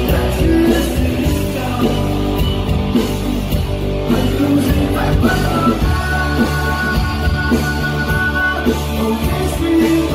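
Live rock band playing: strummed acoustic guitar, electric guitar and drums, with a man singing.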